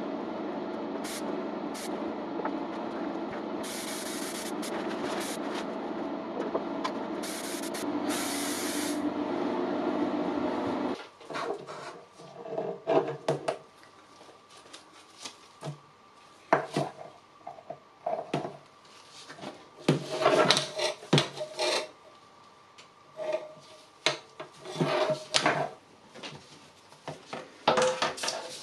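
For about the first eleven seconds a steady hum with short bursts of hiss, which then cuts off suddenly. After that come irregular strokes of hand sanding on painted bodywork, rubbing in short runs with pauses between.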